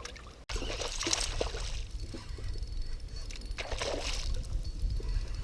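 Water sloshing and splashing against a fishing kayak, with two louder splashes, about a second in and near four seconds.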